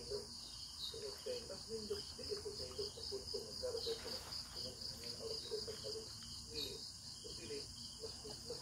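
A steady high-pitched insect trill from a chorus of insects, with a low, broken murmur that comes and goes beneath it.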